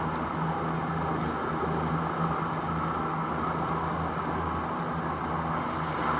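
Small boat's motor running steadily at low speed, with a low even drone and a haze of wind and water noise.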